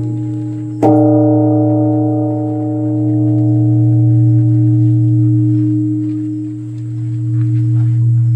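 Large Korean Buddhist temple bell struck once about a second in. Its deep hum and higher tones ring on long after the strike, slowly swelling and fading in loudness.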